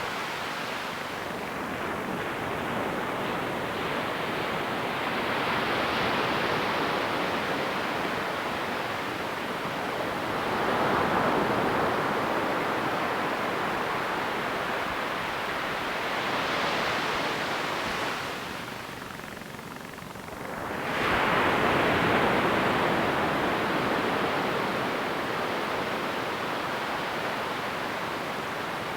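Ocean waves breaking and washing up a sandy beach in a steady rushing surf, swelling as larger waves break, about ten seconds in and again about twenty-one seconds in after a brief lull.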